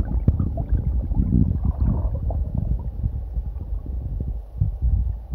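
Muffled underwater rumbling and gurgling from water moving around a submerged smartphone microphone, with many irregular low knocks and thumps.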